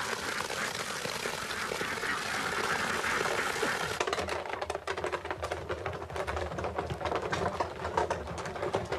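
Liquid gushing out of a tank and splashing onto grass. About four seconds in, this gives way to wooden hooped barrels being rolled along a concrete yard: a low rumble with dense, irregular clattering.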